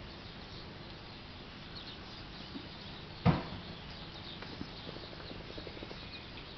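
A single loud thump about three seconds in, amid faint scattered clicks and scuffs of a puppy's paws and claws on the floor as it plays with a cat.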